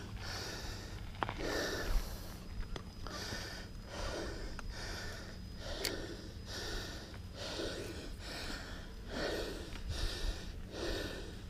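A mountain biker panting hard and fast, roughly one heavy breath a second, out of breath from pedalling.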